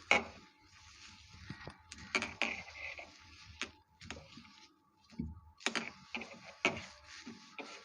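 Scattered knocks and clicks of fridge parts being handled during cleaning, with rubbing and wiping sounds between them. The sharpest knock comes right at the start, and several more follow at uneven intervals.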